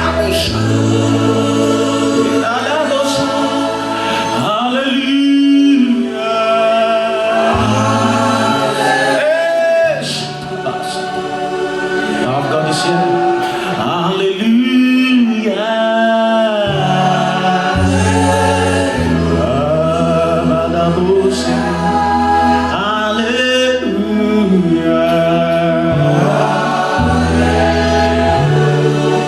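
Contemporary gospel worship song: a choir singing over sustained bass and keyboard chords that change every few seconds.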